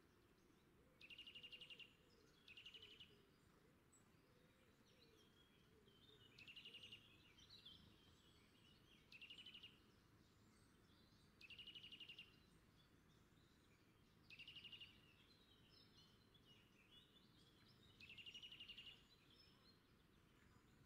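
Faint bird song: about seven short, rapid trills, each under a second long and a few seconds apart, over a near-silent background.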